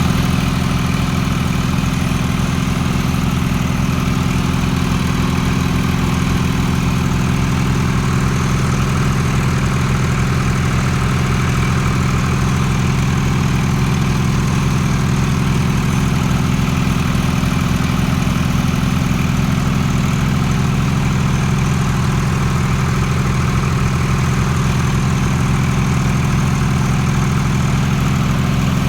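Motor of a new CNG gas pump set running steadily: an even, low drone with a fast regular pulse that does not change in speed.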